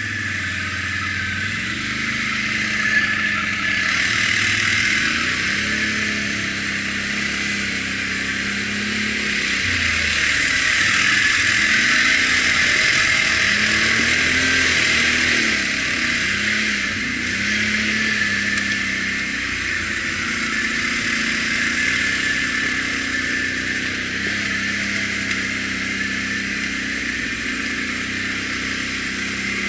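ATV engine running while riding a rough dirt trail, its pitch rising and falling again and again with the throttle, over a steady hiss.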